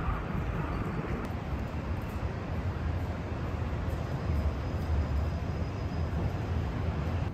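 Steady low rumble and hiss of vehicle noise, even throughout.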